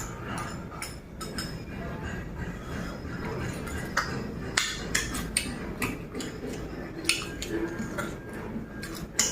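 Eating utensils clinking and tapping against a bowl of noodle soup, a handful of sharp clinks at irregular moments, mostly from about four seconds in, over the low sounds of eating.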